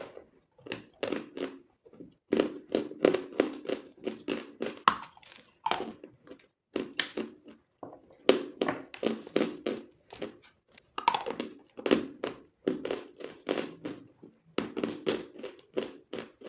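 Close-miked chewing of chalk: runs of crunches about three a second, broken by short pauses, with a sharper bite now and then as a new piece is taken.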